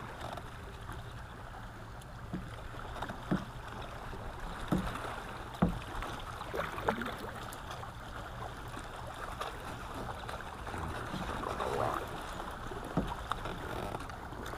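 Small waves lapping and slapping against the hull of a fishing kayak, over a steady low rumble, with a few short sharp knocks scattered through.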